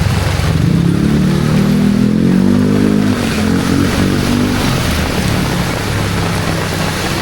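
Heavy rain pouring down steadily while a motor vehicle's engine runs close by, rising in pitch as it accelerates about a second or two in, then running on at a lower pitch.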